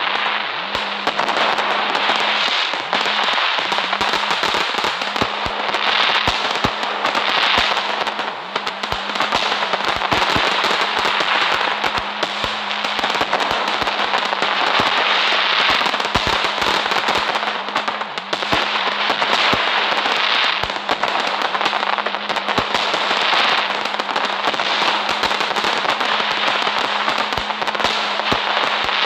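Fireworks crackling in a dense, continuous stream of rapid small pops that never lets up.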